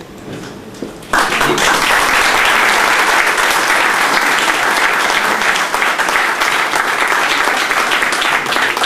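Seated audience applauding. The clapping starts suddenly about a second in and continues steadily.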